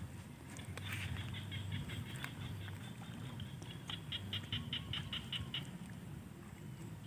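Small paddy frogs calling: trains of rapid, high clicking pulses at about seven a second, with the loudest run in the second half.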